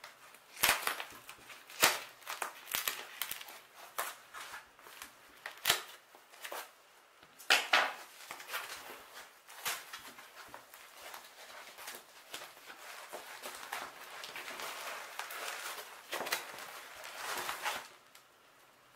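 Scissors snipping through foam packing wrap and the wrap rustling and crinkling as it is handled and pulled off a cardboard box, with a series of irregular sharp snaps.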